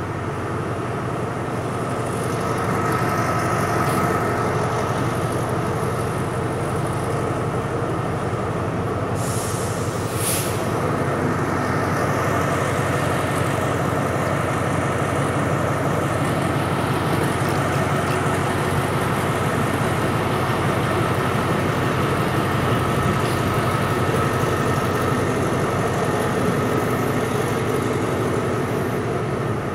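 Passenger train running along the rails: a steady rumble of wheels and carriages, with a short hiss about nine seconds in.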